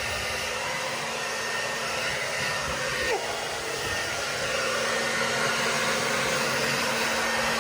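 Handheld hair dryer running steadily, a continuous blowing hiss with a faint steady hum underneath.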